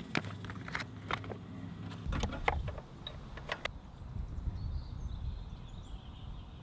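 Metal spark plug tool clicking and clinking as it is pulled out of a tool pouch, a string of sharp clicks over the first few seconds. Faint bird chirps and a low outdoor rumble sit behind it.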